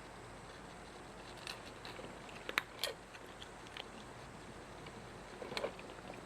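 A cat chewing: irregular small crunchy clicks, the loudest bunched together about two and a half seconds in, with another short cluster near the end.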